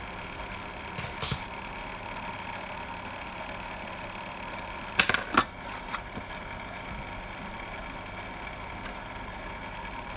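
A steady fan-like hum and hiss, with a few small sharp clicks of tools being handled: a couple about a second in and a louder cluster about five seconds in.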